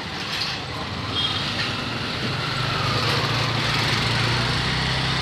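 Motor scooter engine running close by, amid general street traffic; its low steady hum grows louder about two seconds in.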